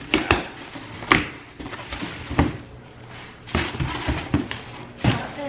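A cardboard shipping box being unpacked by hand: a string of short knocks and rustles as the flaps are pushed open and a packaged bag is pulled out.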